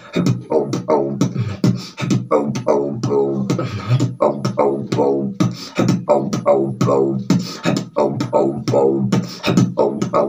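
Solo beatboxing: fast mouth percussion of sharp clicks and hissed snares, woven with short pitched hums that slide downward several times a second.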